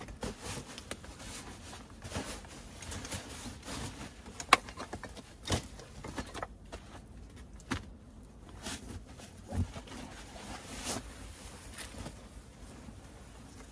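Nylon fabric rustling as a sleeping bag is pulled out of its stuff sack and shaken out, with shoes shifting on loose stones and scattered sharp clicks and knocks; the loudest is a single sharp click about four and a half seconds in.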